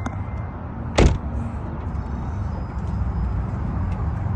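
A car door shutting: one loud thud about a second in, over a steady low rumble.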